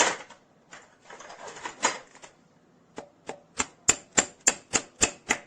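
Steel punch being tapped into a freshly fitted Helicoil thread insert to snap off its drive tang: some light metal clatter, then from about three seconds in a fast run of sharp metallic taps, about three a second. The tang does not yet seem to break.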